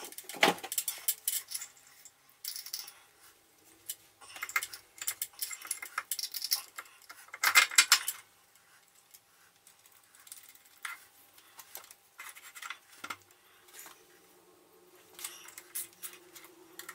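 Steel studs, nuts and a mounting plate clinking and rattling against a milling machine's table as they are fitted by hand and tightened with a hand tool: irregular clusters of metallic clicks, the loudest about halfway through. A faint steady hum runs underneath.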